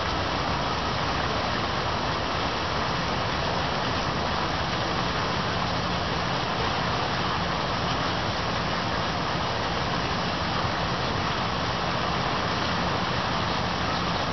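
Steady rain falling, an even unbroken hiss, with a faint low steady hum beneath it.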